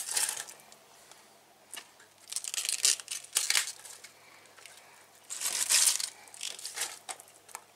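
Handfuls of chopped raw white cabbage rustling and crunching as they are scooped from a bowl and dropped into a pot of soup, in several separate bursts with short quiet gaps.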